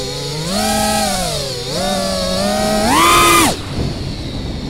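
FPV quadcopter's Butterflight 2207 brushless motors whining, the pitch rising and falling with the throttle. A loud burst of throttle about three seconds in pushes the whine up sharply, then it drops away.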